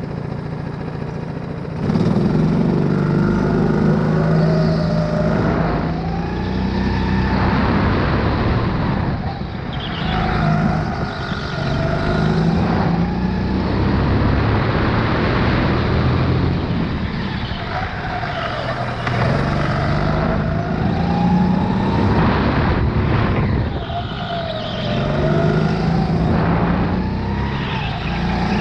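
Sodi RX8 rental go-kart's four-stroke engine, heard from onboard: a steady idle that jumps to full throttle about two seconds in as the kart pulls away, then engine pitch climbing and dropping again and again with throttle and braking through the laps.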